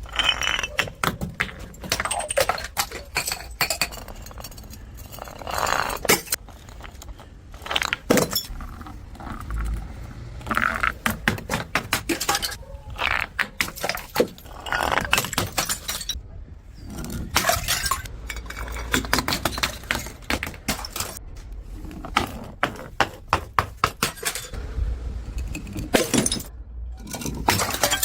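Glass bottles smashing, with broken glass clinking and crunching: many sharp impacts in quick succession, and several louder clusters of breakage.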